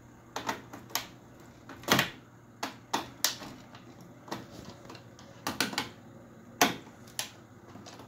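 Irregular sharp clicks and taps of a screwdriver working the terminal screws on a fire alarm power supply board, about a dozen in all, loudest about two seconds in and again near the end.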